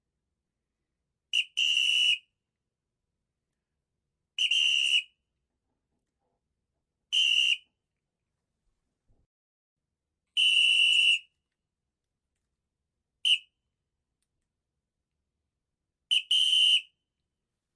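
Blown whistle giving a series of shrill, high-pitched blasts of steady pitch, spaced about every two to three seconds. Most are single toots under a second long, one is a very short chirp, and twice it gives a quick short-long double toot.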